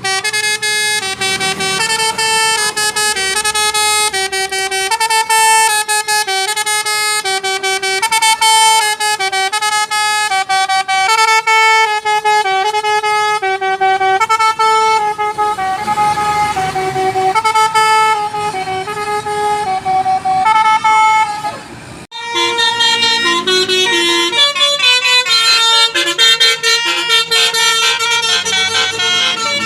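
Basuri musical bus horn ('telolet') playing a melody of held notes that step up and down in pitch. About 22 s in it breaks off and another basuri horn plays a quicker, higher-pitched tune.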